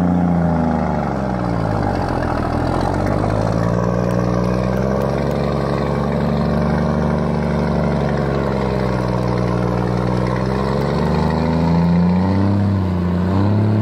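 Heavy logging vehicle's engine working hard, its speed rising and falling several times as it is revved up and eased off.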